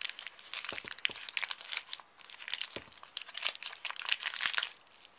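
Oatmeal bag crinkling and crackling as its folded corner is worked and levered under a bottle cap, a dense run of sharp crackles that stops near the end.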